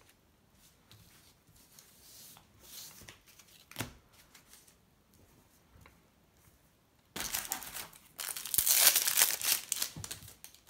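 A Match Attax trading-card packet wrapper being torn open and crinkled, loud tearing and crumpling that starts about seven seconds in and lasts about three seconds. Before it come faint rustles of cards being gathered and one sharp tap.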